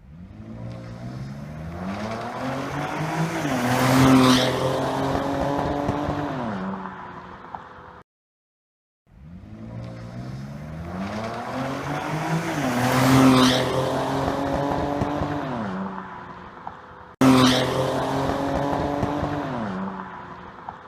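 2014 Ford Taurus SHO's twin-turbo 3.5-litre EcoBoost V6 accelerating hard, its pitch climbing and then falling away. A sharp exhaust pop comes near the loudest point. The run is heard twice, then its second half once more; the cause of the pop is unknown, and the only change was about 1.5 gallons of E85 added before a tank of 93-octane.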